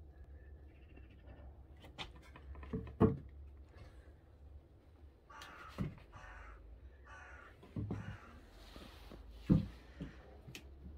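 Scattered knocks and thuds on a wooden plank floor, likely from footsteps and handling, with two loud ones about three and nine and a half seconds in. A few harsh rasping sounds come in the middle.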